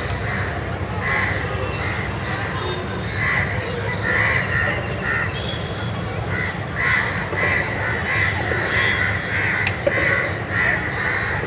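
Crows cawing over and over in quick runs, over a steady low background rumble, with one sharp click about ten seconds in.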